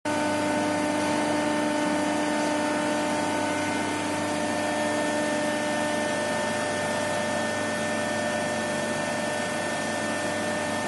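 Hydraulic ironworker (punch-and-shear machine) running idle: a steady hum from its motor and hydraulic pump, several held tones over a noise bed, with no cutting stroke. One of the lower tones fades about halfway through.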